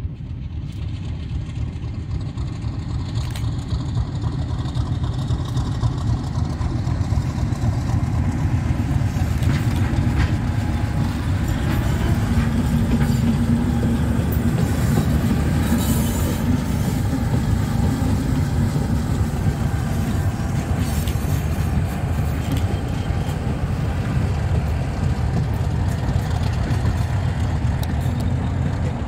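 English Electric Class 50 diesel locomotive passing with its engine running and hauling coaches. Its low rumble builds as it approaches and is loudest about halfway through, then the coaches roll by on the rails.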